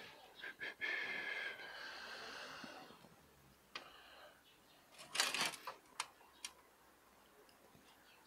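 A person's breathy exhaling, then a few short scrapes and clicks as hands press a bonsai's root ball and soil into its pot, the loudest cluster a little past the middle.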